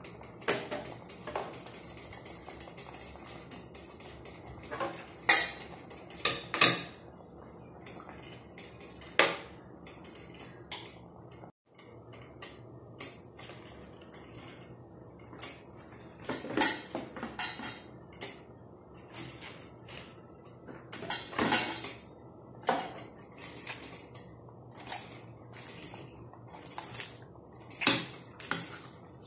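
Metal utensils clinking and knocking against a stainless steel cooking pot in scattered, irregular strikes, the loudest a few seconds in and again near the end, over a faint steady hum.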